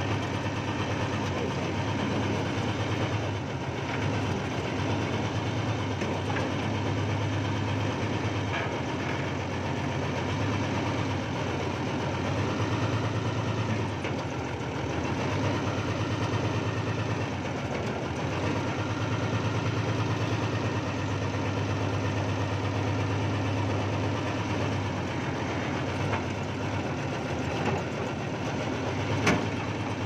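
Old backhoe's engine running steadily, heard from the operator's cab, its low hum swelling and easing in stretches as the boom and bucket are worked. A single sharp click near the end.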